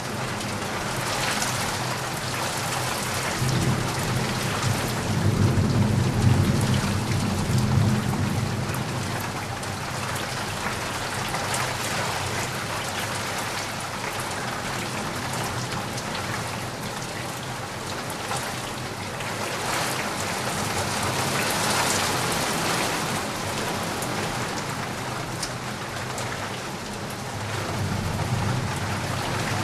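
Steady rain falling, with a low rumble of thunder rolling through from about four to eight seconds in and a shorter rumble near the end.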